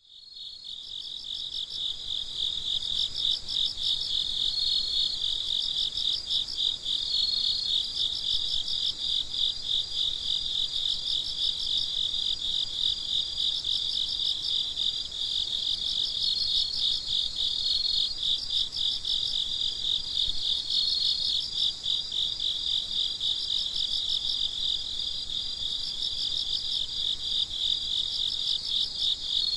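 A chorus of crickets chirping steadily at night, many rapid pulsing chirps overlapping with occasional longer steady trills. It fades in at the start.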